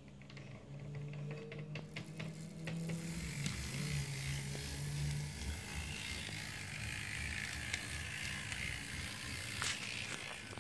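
Tillig TT-scale ČD Cargo class 742 model diesel locomotive running along the track: a steady mechanical whirr from its small motor and gears, with scattered clicks from the wheels on the rails.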